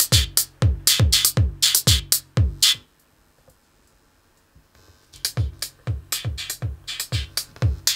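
Drum machine beat played through a botanical mixer, with the audio conducted through plant leaves between electrodes. Kick drums drop in pitch, about three a second, under bright hi-hat hits. About three seconds in the sound cuts out for nearly two seconds, then comes back quieter and builds up again.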